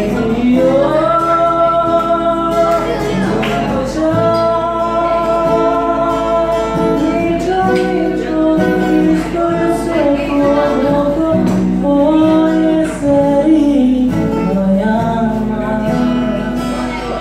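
A man singing a Nepali song to his own acoustic guitar accompaniment, holding long notes with gliding pitch.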